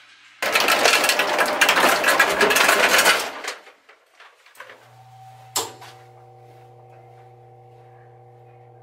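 Commercial ice machine: a loud clatter of ice for about three seconds, then a steady low hum with a few higher held tones, broken once by a sharp click.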